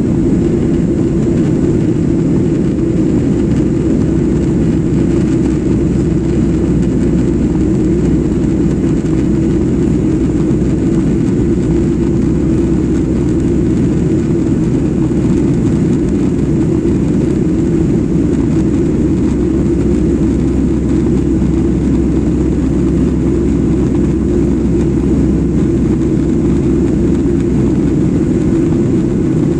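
Jet airliner cabin noise in flight: a steady, unchanging low drone of engines and airflow heard from a passenger seat.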